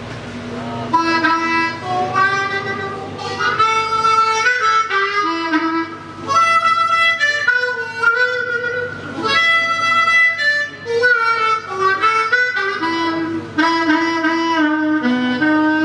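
Diatonic harmonica played solo through a microphone: a melody of held single notes in phrases with short breaks between them.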